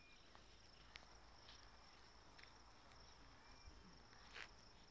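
Near silence, with a faint, steady, high-pitched insect trill, like crickets, running throughout and a couple of faint clicks, about a second in and near the end.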